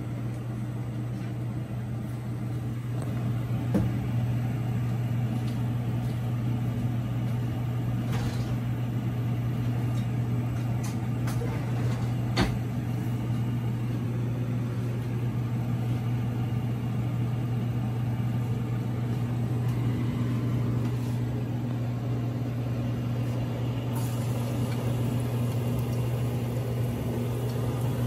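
Steady low hum, with a few faint clicks and knocks.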